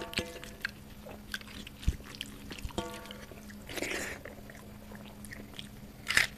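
Fingers squishing and mixing rice and dal on a metal plate, with many small clicks and taps. Close-up mouth sounds of chewing, with a louder smack just after six seconds as a handful goes into the mouth.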